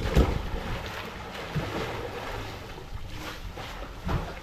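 Water pouring from a swimming pool's waterfall feature and splashing into the pool, a steady rush with louder splashes just after the start and again about four seconds in.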